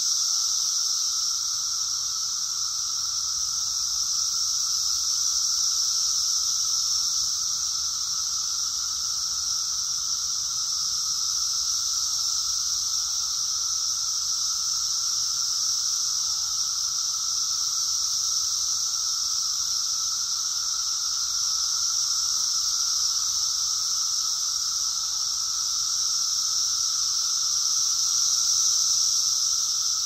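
Chorus of 17-year periodical cicadas: a loud, continuous high buzzing drone with a lower steady tone beneath it, swelling and easing only slightly.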